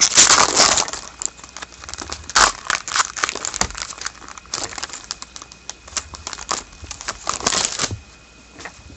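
Foil trading-card pack wrappers crinkling and cards being handled, in irregular rustling bursts that are loudest in the first second and again about seven seconds in.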